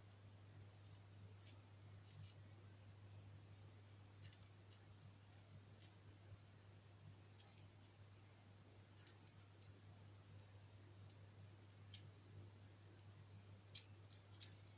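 Faint, scattered clicks and light rattles of a metal wire puzzle's loops and rings knocking and sliding against each other as it is worked by hand, over a low steady hum.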